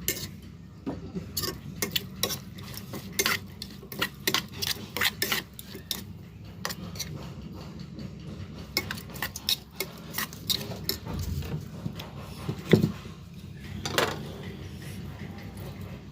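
Kitchen utensils clattering and knocking in food preparation: a quick run of sharp clicks for the first six seconds or so, then sparser, with one louder knock about 13 seconds in.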